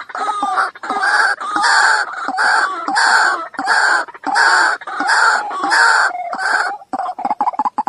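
White-breasted waterhen calling loudly: a repeated croaking 'kruak-kruak', about two calls a second. Near the end it breaks into a quick run of short notes.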